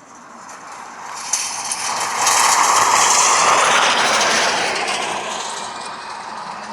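A jet aircraft passing by: a rushing engine noise that swells to a peak and then fades away, with a faint turbine whine falling in pitch as it goes.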